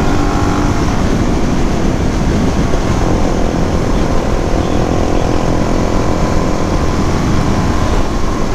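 Suzuki DR-Z400 supermoto's single-cylinder engine running while riding, under heavy, steady wind rush on the microphone.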